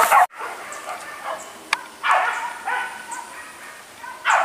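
Hunting dog barking in short, separate barks, the loudest about two seconds in and near the end.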